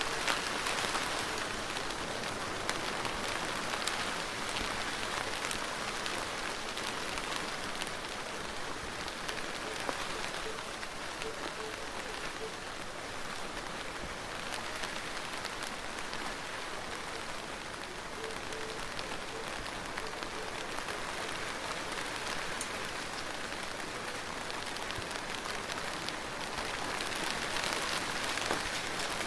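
Steady rainstorm: an even hiss of rain falling, with many small drop ticks mixed through it.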